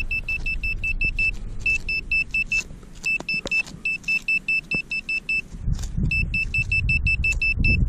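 Metal detector beeping fast on one high, steady tone, about seven beeps a second, in runs broken by short pauses. This is the signal of a metal target in the dug hole. A low rumble and a few clicks from handling run underneath.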